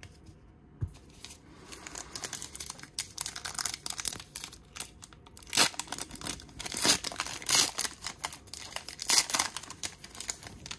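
A foil baseball-card pack wrapper being torn open and peeled by hand: a run of crinkling and tearing that starts about a second in, with several sharper, louder crackles through the middle and end.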